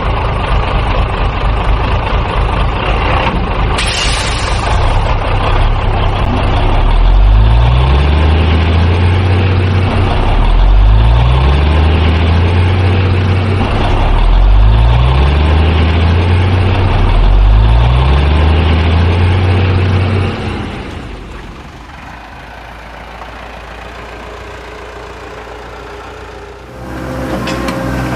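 Truck engine sound revving up again and again, about every three and a half seconds, then settling to a quieter steady idle about twenty seconds in and picking up again near the end.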